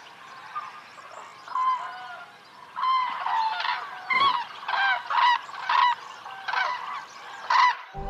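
Common cranes calling in a squabbling flock: a run of about a dozen short, honking calls, a few faint ones at first and then loud, rapid calls from about three seconds in. The calls go with the leaps and squabbles of the cranes' mating display.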